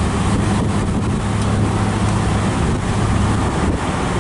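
A 1966 Ford Mustang convertible's six-cylinder engine running under way, heard from inside the car as a steady low hum mixed with road and wind noise.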